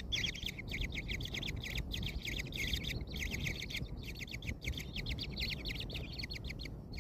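Kingfisher nestlings giving begging calls: a fast, continuous train of short high chirps, about ten a second, with a few brief pauses, over a low steady rumble.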